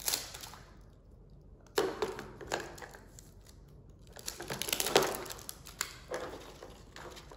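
Crinkling and tearing of plastic wrapping as a Mini Brands toy capsule is opened by hand, in a few short bursts about two, five and six seconds in, with a sharp crackle near five seconds.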